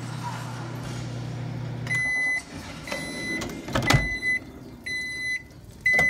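Microwave oven running with a steady low hum that stops about two seconds in as the timer runs out, then five end-of-cycle beeps about a second apart. Near the middle of the beeps comes a sharp click of the door being opened.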